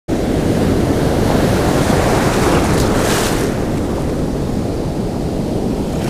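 Ocean surf rushing and foaming around the legs of someone standing in the whitewater, with wind buffeting the microphone. A louder hiss of surging water comes about three seconds in.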